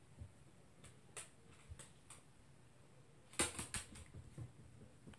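A toy poodle's claws clicking and pattering on the floor as it moves about: a few scattered taps, then a quick flurry of clicks as it scampers off, about three and a half seconds in.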